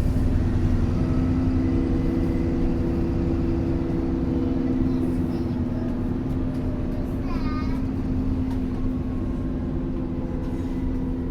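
Alexander Dennis Enviro400 Trident double-decker bus engine running steadily, heard from inside the bus, with a low rumble and a steady hum. A brief high squeal comes about seven seconds in.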